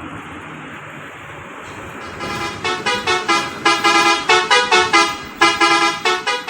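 A bus's basuri-type telolet horn playing a melody of short, loud notes at changing pitches, starting about two seconds in, over steady traffic noise.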